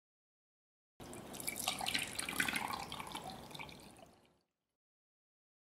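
Chocolate mixture pouring from a small jug into a glass: a splashing, dripping trickle that starts abruptly about a second in and fades out over the next three seconds.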